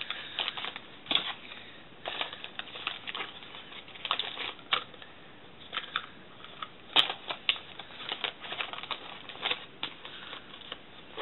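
Irregular rustling and small clicks and knocks of packaged toiletries being handled and packed back into a bag.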